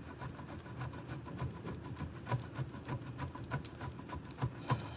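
Cheese being grated by hand on a grater: a run of quick, uneven scraping strokes.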